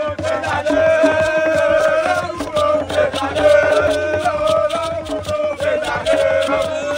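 Singing over music with a steady beat, the melody drawn out in long held notes.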